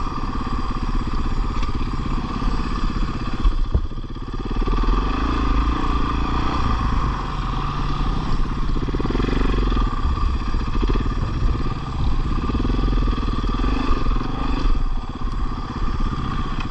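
Dirt bike engine running at low speed on rough ground, its pitch swelling up and falling back every few seconds. A few sharp knocks come about four seconds in.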